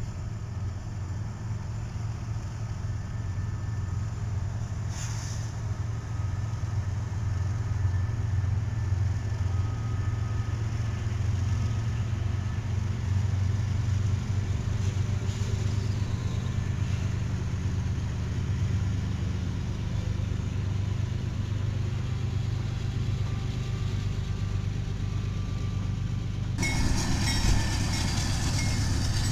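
Diesel locomotive running with a steady low drone that builds slightly over the first dozen seconds. About 27 seconds in, the sound switches abruptly to a brighter, hissier mix.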